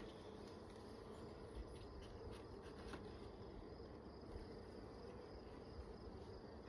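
Faint, steady hum of a colony of honeybees around an open hive being inspected, with a few faint ticks.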